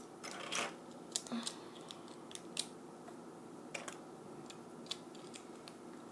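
Plastic Lego bricks being handled and pressed together by hand: scattered sharp little clicks and brief rustles at irregular intervals.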